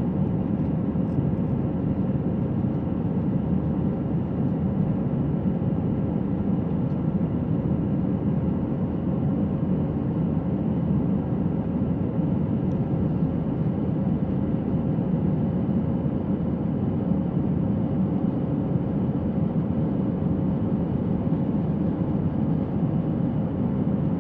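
Airbus A321 cabin noise during the climb after takeoff: steady engine and airflow noise heard from a window seat over the wing, with a steady hum near 500 Hz running through it.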